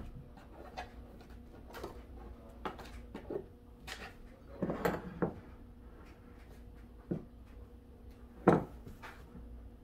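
Scattered knocks and clicks of kitchen things being handled on a tabletop, a plastic gallon milk jug and a glass measuring cup among them, as the milk is got ready to pour. There is a small cluster of knocks about halfway through and the loudest single knock near the end.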